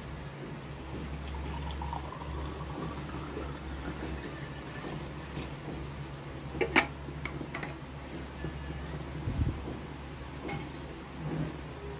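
Water poured from a bottle into a drinking glass, the pitch of the filling rising slowly as the glass fills. A single sharp knock about seven seconds in is the loudest sound, with a few lighter knocks later on.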